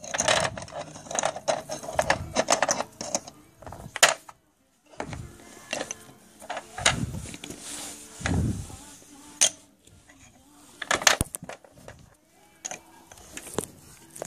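Small plastic toys being handled and set down on a wooden table: irregular clicks, taps and knocks with soft rustling between.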